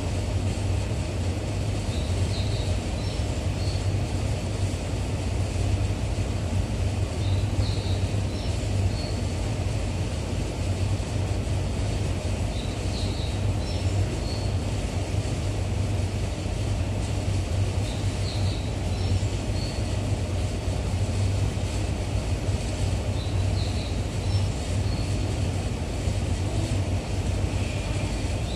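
Steady low hum of an underground subway platform's ambience, with short high chirps recurring in pairs about every five seconds.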